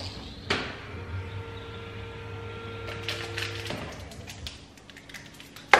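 Sharp clicks and knocks of containers being handled on a kitchen shelf: one about half a second in, a small cluster about three seconds in, and a loud one at the very end. Under them runs a steady hum that cuts off about four seconds in.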